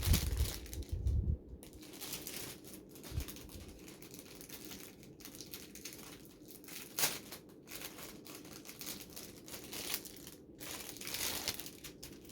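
Packaging being crinkled and torn open by hand to unwrap a choker, a steady crackle of small clicks. Heavier handling knocks come in the first second or so, and a single sharp click about seven seconds in.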